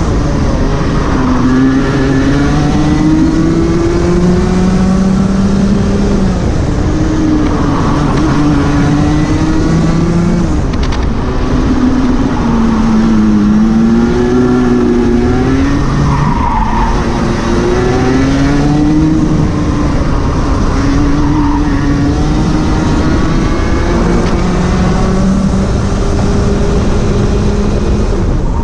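Rotax 125 Junior Max Evo kart's single-cylinder two-stroke engine at racing pace, its pitch climbing and dropping again and again as it accelerates and lifts through a run of corners, over a constant rush of noise.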